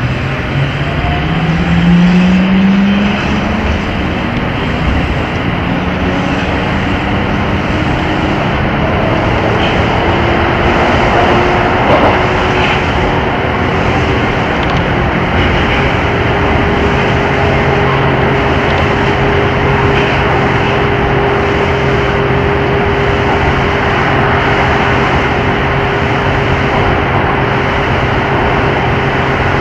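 Amsterdam Metro electric train running. Its traction motors whine upward in pitch over the first few seconds as it picks up speed, then settle into a steady hum over continuous running noise, with a brief knock about twelve seconds in.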